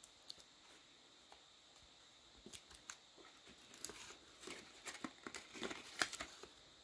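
Faint rustling and scattered clicks of packaging being handled and opened by hand, sparse at first and busier from about halfway through.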